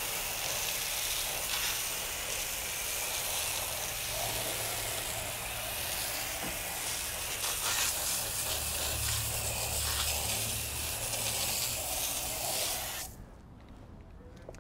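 Water spray hissing steadily against a truck wheel and tyre as the wheel cleaner and loosened grime are rinsed off, cutting off suddenly about a second and a half before the end.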